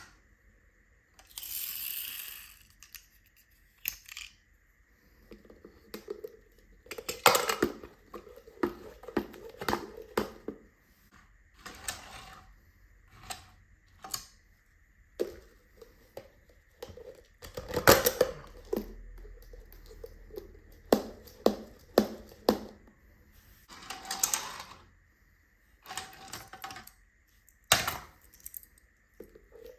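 Small die-cast toy cars clattering, clicking and knocking as they are handled and dropped, with a few longer scraping sounds, one near the start and one near the end.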